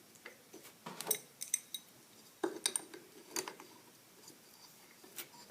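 Small steel pieces of a pulley remover kit clinking and scraping as a threaded piece is fitted into a power steering pump: scattered sharp metallic clicks, thickest about a second in and again from two and a half to three and a half seconds in.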